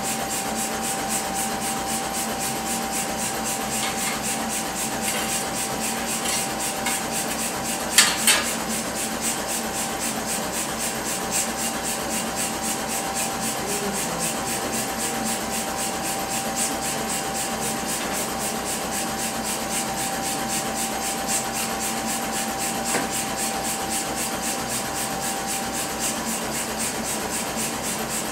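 Blacksmith's coal forge burning under an air blast: a steady rushing hiss with a faint steady hum from the blower. A single sharp knock about eight seconds in.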